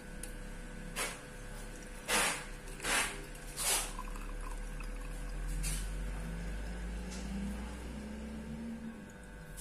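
Boiled ginger and lime water poured through a strainer into a glass. Several short scraping knocks in the first four seconds, then a steadier, quieter pour.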